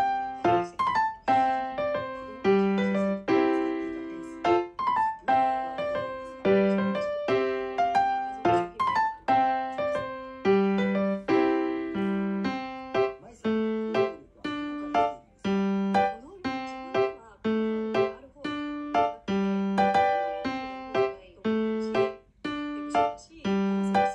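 Background music: a light piano tune of single notes and chords in a steady rhythm.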